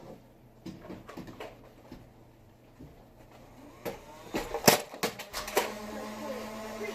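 Nerf blasters being fired in a small room, with scattered clicks and then a cluster of sharp knocks about four to five seconds in. A small electric motor then starts a steady whir, the flywheels of a motorized Nerf blaster spinning.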